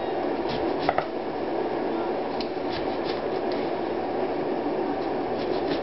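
Keurig single-cup brewer running with a steady whirring hiss as it brews, with a few light clicks of a knife slicing lemon against a cutting board.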